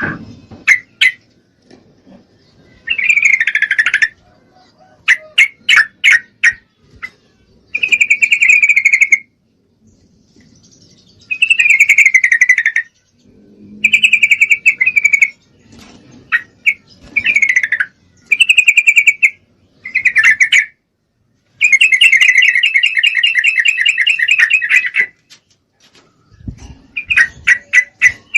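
Female yellow-vented bulbul calling: bubbly chattering phrases about a second long, repeated with short pauses, with one longer rapid chatter lasting about three seconds past the middle. It is the call of a female in breeding condition, used to draw a male to answer.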